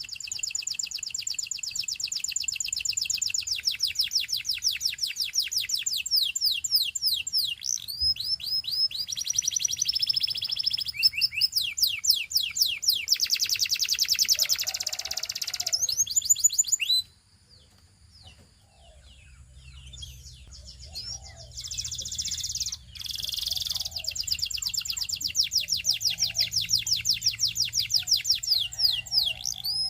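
Canary singing in long, fast trills of rapidly repeated high notes, some of them quick downward sweeps. The song breaks off suddenly about halfway through, leaving a few seconds of near quiet, then starts up again and runs on in trills.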